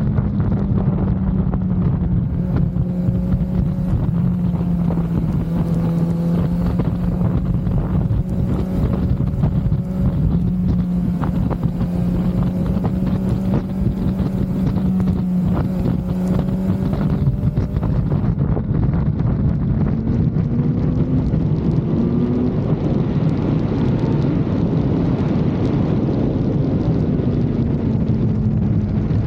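Kawasaki Z900's inline-four engine running at steady revs on the move, with wind noise on the microphone. About twenty seconds in the revs climb, then ease off near the end.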